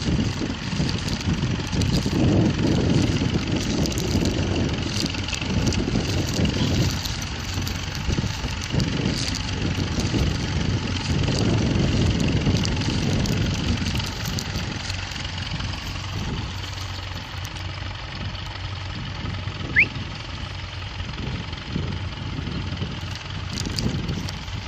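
Ferguson TEF20 tractor's four-cylinder diesel engine running steadily, easing slightly in level about halfway through. A short rising chirp cuts through once, about 20 seconds in.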